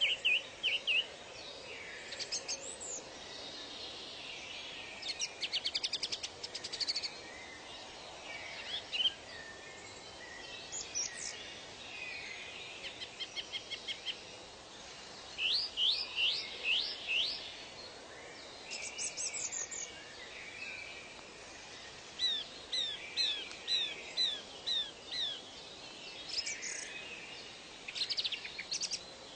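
Several birds calling and singing over a faint steady background hiss: short chirps, fast trills, and a run of rising whistled notes about halfway through.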